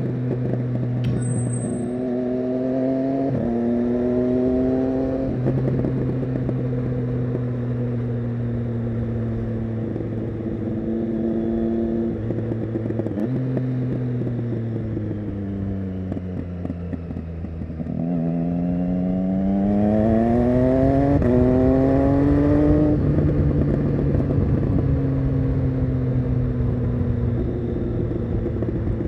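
2015 Triumph Street Triple 675 Rx's three-cylinder engine through an SC-Project Conic exhaust. It revs up through the gears with quick upshifts a few seconds in, holds a steady pace, then falls in pitch as the throttle is closed. About two-thirds of the way through it revs up again through two more gears and settles back to a steady run.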